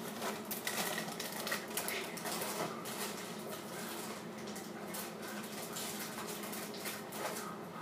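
Plastic cereal-bag liner crinkling and crackling as it is handled and cut open with scissors, with dense quick crackles in the first few seconds that then thin out, over a steady low hum.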